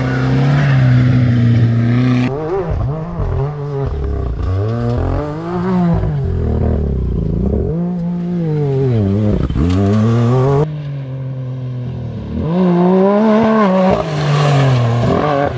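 Off-road race vehicle engines revving hard. The engine is held at a steady pitch at first, then its pitch rises and falls again and again as the throttle is worked. The sound changes abruptly about two seconds in and again near eleven seconds.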